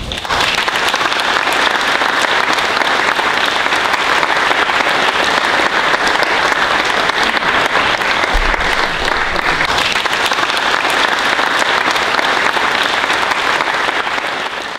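Audience applauding steadily, many hands clapping at an even level.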